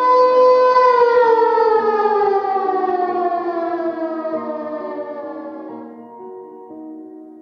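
Civil defense siren holding one steady tone, then about a second in winding down, its pitch falling slowly as it fades away. Soft piano-like background music plays underneath.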